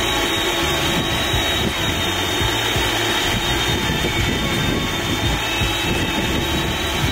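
VEVOR cold spark machine running with a steady jet-like whoosh and a high, even whine, being run on until it is empty of spark granules.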